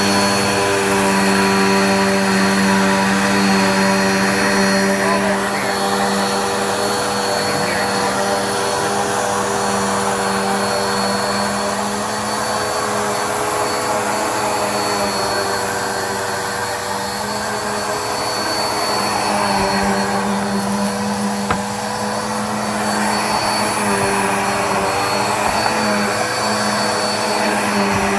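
Black+Decker Air Swivel upright vacuum running continuously, a steady motor hum with a thin high whine, its loudness dipping and rising slightly as it is moved.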